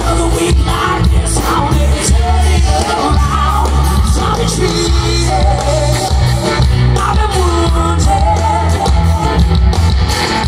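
Live rock band playing loud through a stage PA: a woman singing lead over electric guitar, bass and drums, with a heavy bass.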